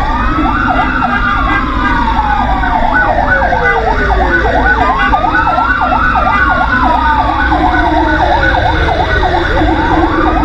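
Fire engine sirens: a slow wail that climbs quickly and falls away over about four seconds, repeating twice, overlapped by a rapid yelp of about three cycles a second. A steady low rumble of the truck's engine runs underneath.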